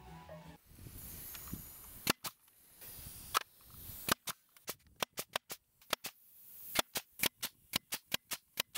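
Nail gun firing, sharp cracking shots: a few scattered ones, then a quick run of about three a second from about four seconds in.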